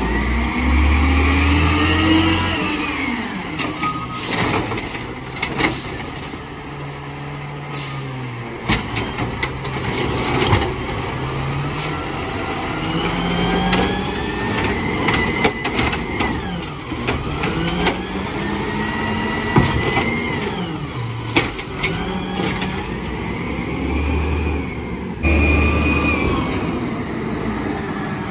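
Peterbilt 320 garbage truck with an Amrep automated side-loader, its compressed-natural-gas engine rising and falling in pitch several times as it works the hydraulic arm that grabs, lifts and dumps a cart. Several sharp knocks come from the cart and the arm, along with hisses from the air brakes as the truck stops and moves on.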